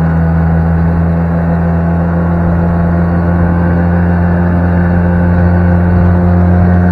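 Outboard motor on a jon boat running steadily under way, heard close from inside the boat as a constant low drone.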